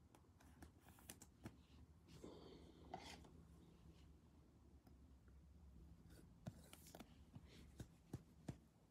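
Near silence with faint rustles and small clicks of trading cards being handled and slid into rigid plastic top-loaders, a few sharper ticks near the end.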